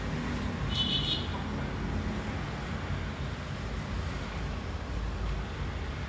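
Steady low background rumble, with a brief high-pitched sound about a second in.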